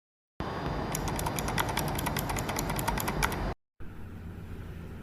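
Gateron mechanical keyboard switches being pressed in quick succession, a rapid run of typing clicks at about eight a second that cuts off suddenly about three and a half seconds in. A steady low hum and hiss follows.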